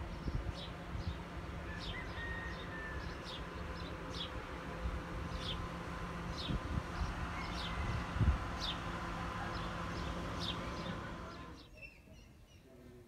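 Outdoor insect ambience: a steady buzzing hum with short high chirps repeating about once or twice a second, and low rumbles with a thump about eight seconds in. It all drops away abruptly about a second before the end.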